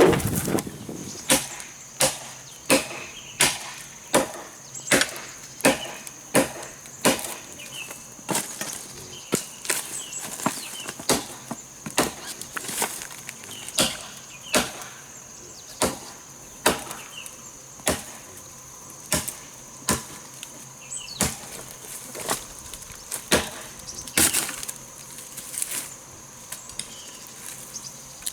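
Blade chopping into wood in a steady rhythm of sharp strikes, about three every two seconds.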